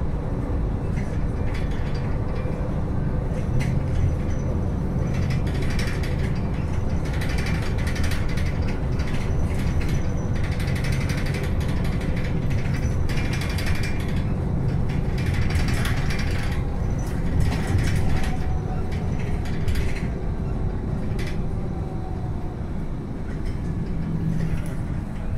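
Cabin noise of a bus rapid transit bus on the move: a steady low rumble from the drivetrain and road, with frequent clicking and rattling from the bus's interior fittings.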